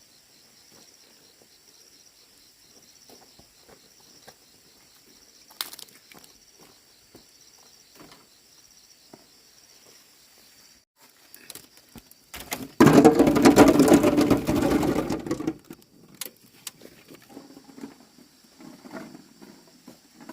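Dry corn plants rustling and snapping in small scattered clicks while ears are picked, over a steady high drone of insects. About thirteen seconds in comes a loud burst of rustling that lasts nearly three seconds.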